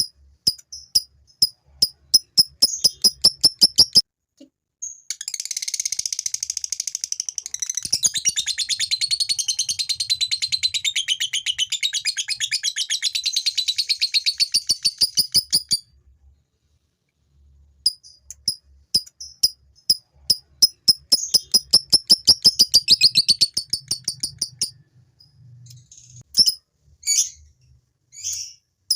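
A male lovebird's ngekek: a run of fast, high repeated chirps that about five seconds in runs together into a long unbroken chattering trill lasting around ten seconds. After a short break comes a second run of rapid chirps, then a few scattered calls near the end.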